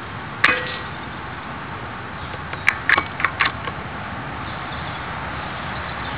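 Air Arms S410 .177 PCP air rifle firing: one sharp crack with a brief metallic ring, followed about two seconds later by a quick run of metallic clicks from the rifle's action.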